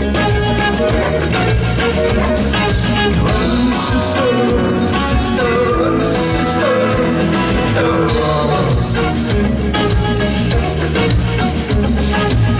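Live rock band playing an instrumental passage, with guitars, bass and drums over a steady beat.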